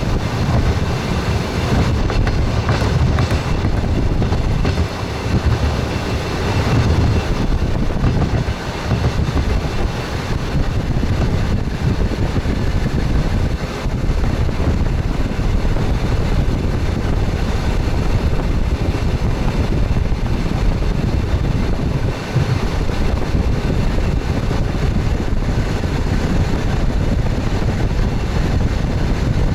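Express train running along the line: the steady rumble and clatter of wheels on the rails, with some wind noise.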